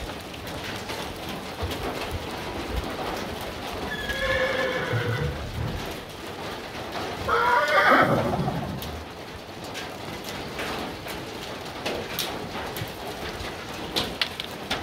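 A horse whinnying twice: a shorter call about four seconds in, then a louder one that falls in pitch. Light rain patters underneath.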